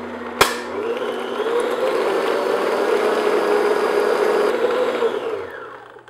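Electric stand mixer running, its flat beater mixing egg and vanilla into creamed butter-and-sugar cookie batter in a glass bowl: a steady motor hum that winds down and stops near the end. One sharp knock about half a second in.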